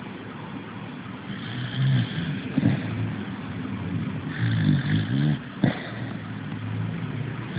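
A sleeping dog snoring, the snores coming in bouts, with two short sharp sounds between them.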